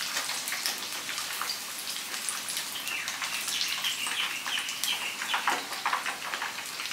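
Tapioca-battered tofu deep-frying in hot oil in a pan, the oil sizzling and crackling steadily with many small pops.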